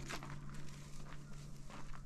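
Footsteps: a run of irregular short steps over a low steady hum.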